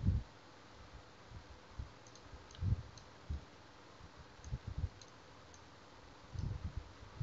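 Faint computer mouse clicks and dull knocks at irregular moments, several in a cluster near the end, over a low steady hiss.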